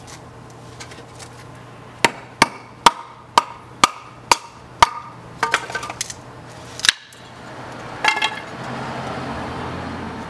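Hatchet chopping kindling on a wooden chopping block: a run of seven sharp wooden knocks about two a second, then a few more irregular knocks, and a soft rustle near the end.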